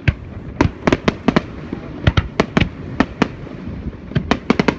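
Fireworks shells bursting in a rapid, irregular volley of sharp bangs, about fifteen in under five seconds, some coming in quick clusters near the middle and the end, over a low steady rumble.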